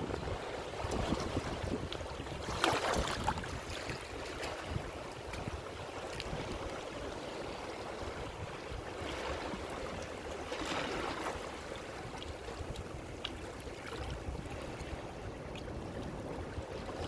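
Ocean waves washing in and drawing back in a steady hiss, with two stronger waves breaking about three seconds in and again about eleven seconds in.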